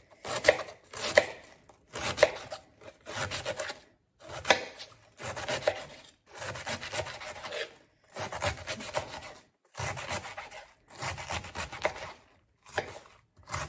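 Kitchen knife slicing half a head of Napa cabbage on a wooden cutting board: runs of quick cuts, each stroke knocking on the board, broken by short pauses every second or two.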